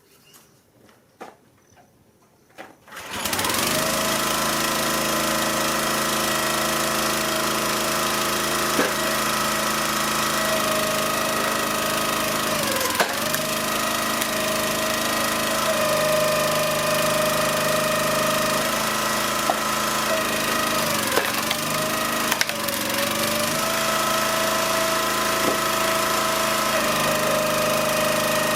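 Log splitter's small gasoline engine running steadily, its pitch dipping briefly a few times under load as wood is split. It comes in suddenly about three seconds in, after a few faint clicks.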